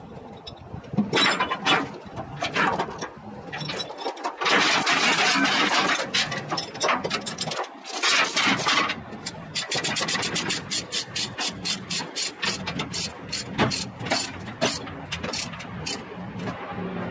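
Steel tie-down chains rattling and scraping over a trailer deck, then a ratchet load binder being cranked tight, clicking about three or four times a second.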